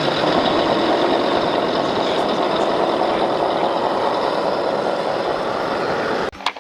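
Steady rushing spray of a water jet washing mud off a toy, cutting off suddenly near the end with a short click.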